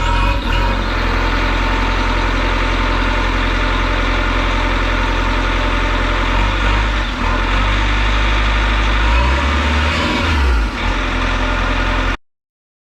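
Bobcat T595 skid steer's turbo-diesel engine running just after start-up through a muffler hollowed out with its baffle removed, so it is nearly straight-piped. It runs steadily at idle with a couple of brief changes in engine speed past the middle, and the sound cuts off suddenly near the end.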